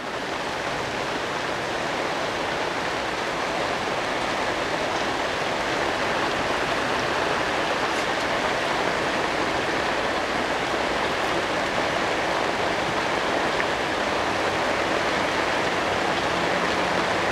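Heavy thunderstorm rain falling, a steady dense hiss. A faint low hum joins in near the end.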